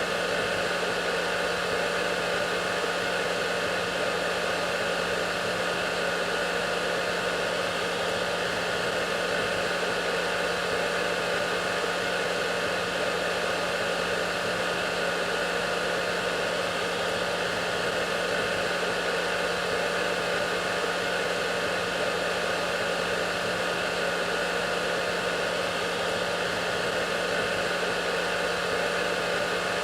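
Hair dryer running steadily: an even airy rush with a constant low motor hum.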